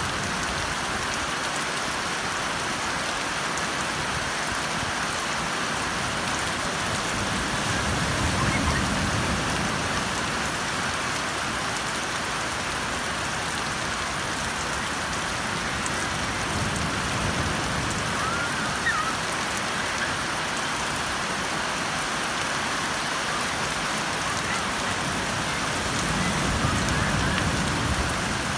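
Steady hiss of rain falling on a beach, mixed with surf breaking close by. The low rush of the waves swells a few times, most strongly about a third of the way in and again near the end.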